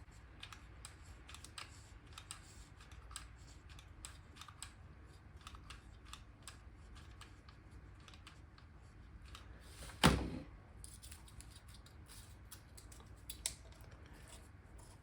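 Hands handling the parts of a homemade humidifier: scattered small clicks and taps, with one loud knock about ten seconds in and a smaller one near the end.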